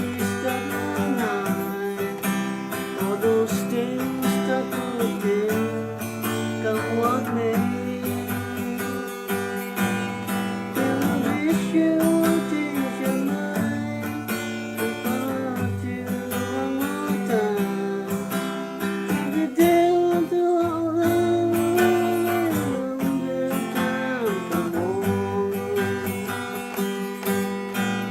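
Acoustic guitar strummed through an instrumental break, with a sliding melody line above the chords.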